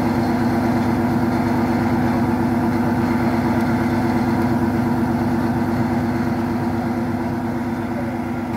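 An old diesel passenger train's engine idling, a steady drone with a fast, even throb.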